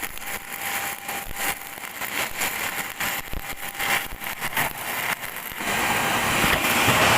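Electric welding arc crackling and sizzling in irregular pops, then about five and a half seconds in a louder, steady hiss takes over.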